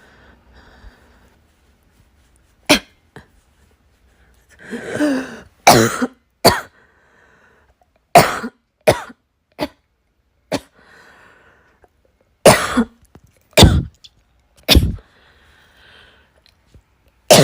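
A person in a coughing fit that won't stop: about ten sharp coughs, mostly in runs of two or three, with a longer, rougher throat-clearing cough about five seconds in.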